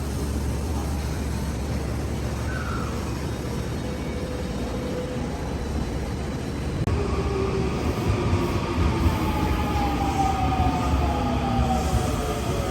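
Odakyu Romance Car electric train running with a steady low rumble. About halfway through, a falling whine from the train sets in and slides down in pitch over several seconds, as a train makes when slowing.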